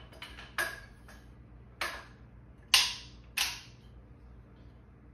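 Parts of an AR-style 450 Bushmaster rifle, its upper and lower receivers, being handled and fitted together: four sharp clacks with a few fainter clicks, the loudest about three seconds in.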